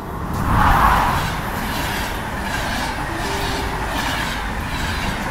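A passenger train passing at speed, its sound swelling to a peak about a second in and then running on as a steady rumble, with wheels clicking rhythmically over the rail joints.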